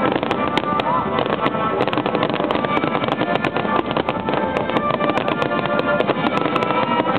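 Many fireworks shells bursting and crackling in quick, irregular succession, over music playing throughout.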